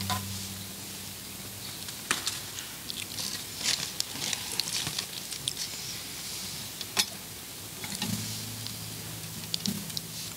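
Sharp little clicks and clinks of altar vessels (paten, chalice, ciborium) being handled, a few at a time over a soft steady hiss. A faint low steady tone sounds at the start and again from about eight seconds in.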